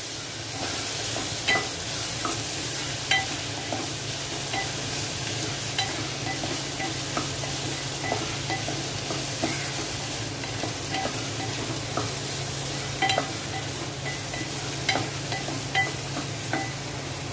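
Chopped onion frying in oil in a pot, a steady sizzle, being softened before the chillies go in. A wooden spatula stirs it, with irregular light taps and scrapes against the pot.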